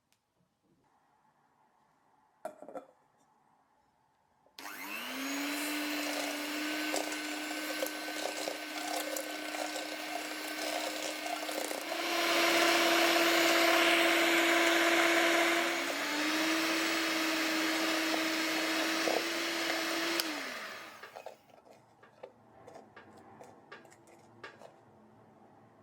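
Electric kitchen mixer running steadily, switched up to a higher speed partway through, dropping back briefly and rising again, then switched off. A light knock comes before it and a few small clicks after.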